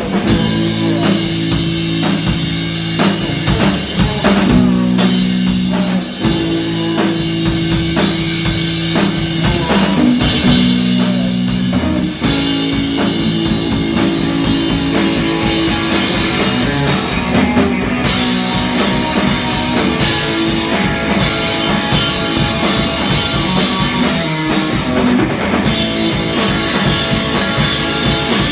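Rock band playing live, with a drum kit and guitar, loud and steady.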